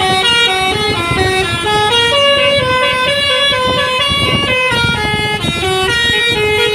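Basuri telolet horn on a bus playing a quick tune: stacked horn tones stepping up and down in pitch about every quarter second, over a low rumbling noise.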